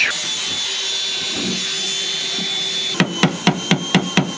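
A power tool running with a steady high whine, which cuts off about three seconds in. Then about six quick hammer blows, roughly four a second, drive a green-handled scraper to chip sealer off a car's sheet-metal floor pan.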